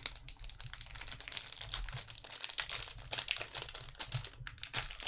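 Plastic wrapping of a sealed trading card crinkling and crackling as it is handled and torn open, in a dense run of small irregular crackles.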